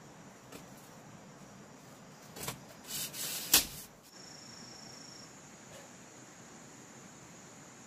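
Bamboo and leaves handled by hand: scattered clicks, rustling, and a sharp knock about three and a half seconds in, the loudest sound. After that, a steady forest background, with a thin, high insect note held for about a second.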